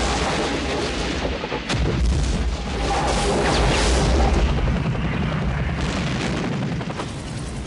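Battle sound effects: a dense mix of explosions and gunfire over a deep, continuous rumble, with one sharp crack nearly two seconds in.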